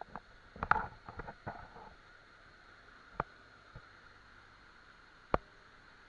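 Faint, steady rush of a forest waterfall, with a few sharp clicks and knocks over it: a cluster about a second in, then single ones near the middle and near the end.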